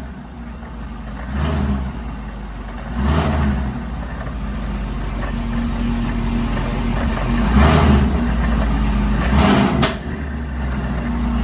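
Supercharged Camaro V8 with a Whipple 2.9 L blower, idling and blipped four times, with the knocking, grinding noise that the owner suspects comes from a bad supercharger isolator.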